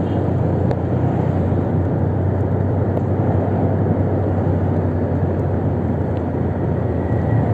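Motorcycle running steadily at cruising speed: a constant low engine hum under a wash of road and wind noise.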